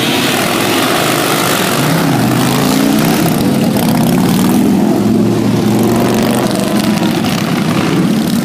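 A large group of motorcycles riding past together, their engines making a loud, steady drone with revs rising and falling.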